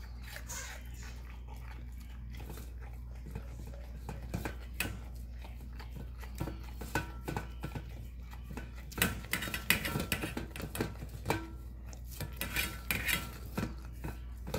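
Pit bull puppy eating raw food from a stainless steel bowl: wet licking and chewing, with frequent clinks and scrapes of tongue and teeth against the metal, busiest in the second half. A steady low hum runs underneath.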